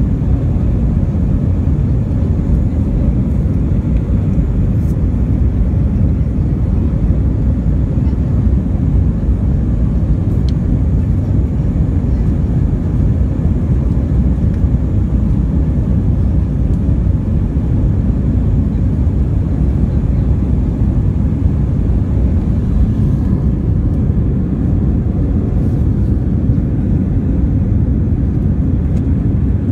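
Airliner cabin noise in flight: a steady, low rumble of jet engines and rushing air, unchanging throughout.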